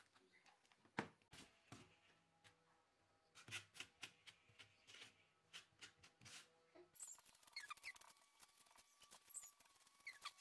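Faint handling sounds at a workbench: a few light clicks and taps, the sharpest about a second in, then from about seven seconds a spoon scraping and squeaking as it spreads white paste over a polystyrene foam boat hull.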